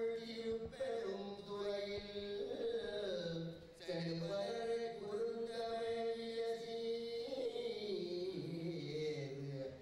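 Sanskrit mantras chanted in long, held phrases that slide in pitch here and there, with a short break about four seconds in.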